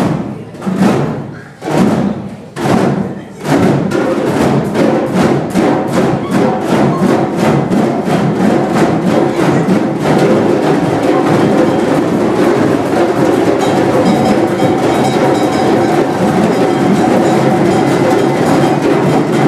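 An ensemble of djembe hand drums plays big unison strikes about a second apart, then breaks into fast drumming that speeds up until it blurs into a continuous, steady roll.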